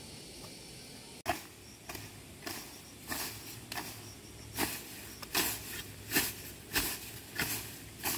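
Short scraping strokes, each a brief hiss, repeating regularly about every two-thirds of a second after a sudden cut about a second in.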